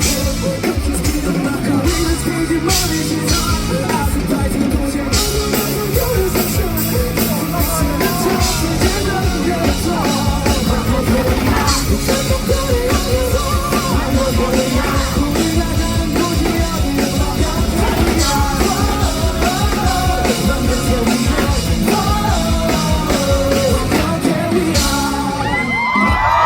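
Live rock band playing at full volume, with drum kit, bass and guitars, and singing and yelled vocals over the music.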